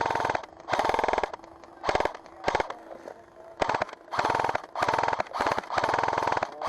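G&P M249 airsoft electric support gun firing a string of full-auto bursts, some short and some over a second long, with brief pauses between them. The motor and gearbox cycle rapidly and each BB shot comes as a fast rattle.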